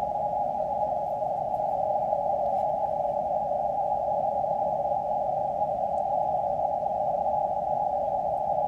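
QRP Labs QMX+ transceiver receiving on the 15-metre CW band: steady band noise heard through its narrow CW audio filter, a narrow, even hiss with no Morse signals in it. The band is nearly empty.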